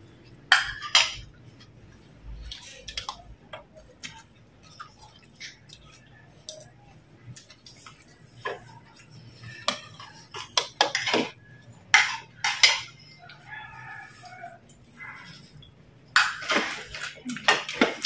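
Spoons clinking and scraping against ceramic bowls and plates while people eat. The clinks are sharp and irregular, sparse at first and busiest near the end.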